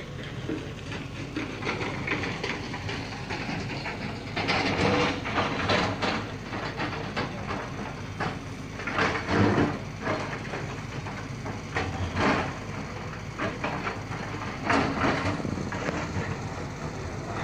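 Lonking excavator working loose rock: a steady rumble, with irregular loud clattering and crashing several times from about four seconds in.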